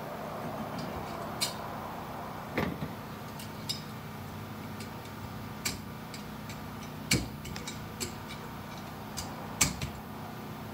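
Scattered light metal clicks and clinks, about seven at uneven intervals, as steel clutch-pack parts are handled in a 4L60E-style transmission's 3-4 clutch drum, over a steady low hum.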